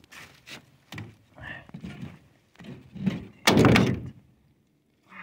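Knocks and thuds on a boat as a largemouth bass is landed and handled, with one louder half-second burst of noise about three and a half seconds in.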